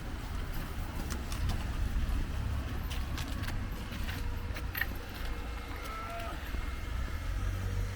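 Outdoor street ambience: a steady low rumble with scattered clicks and ticks, and a brief chirp-like tone about six seconds in.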